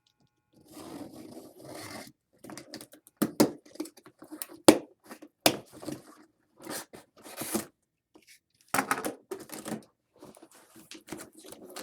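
Cardboard box being opened and its packaging handled: tearing, scraping and crinkling, broken by several sharp knocks and clicks.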